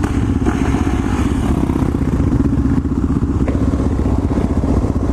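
Single-cylinder dirt bike engine running at a steady cruising pace, its pitch holding even.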